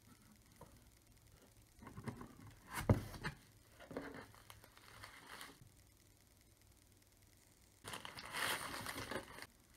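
Cardboard shipping box being opened by hand: the flaps are torn and scraped apart in a few short bursts, one sharp and loud. Near the end, the packing paper inside crinkles for about a second and a half.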